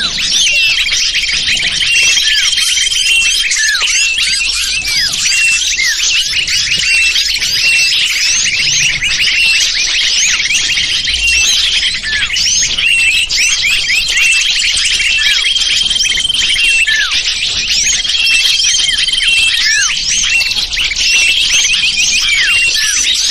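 A recorded lure call of small birds: a dense chorus of many high-pitched chirps overlapping without a break, with a sustained high trill coming back every few seconds.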